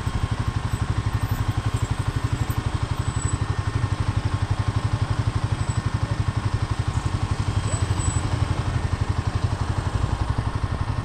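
Royal Enfield single-cylinder motorcycle engine idling, a steady, even exhaust beat.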